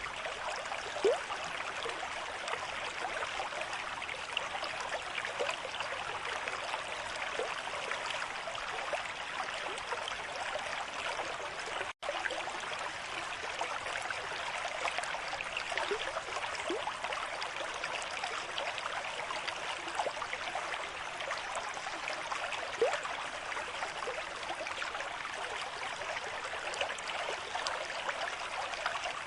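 River stream flowing at a moderate rate: a steady rush of water with a few brief bubbling gurgles. A split-second gap in the sound comes about twelve seconds in.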